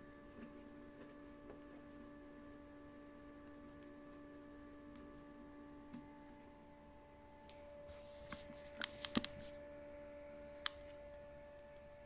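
Door of an LG front-loading washing machine being swung shut, with a cluster of clicks and knocks about eight to nine seconds in, followed by one sharp click a little later, over a faint steady hum.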